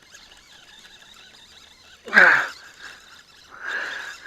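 A man's short excited vocal exclamation, falling in pitch, about two seconds in, followed near the end by a brief rush of noise.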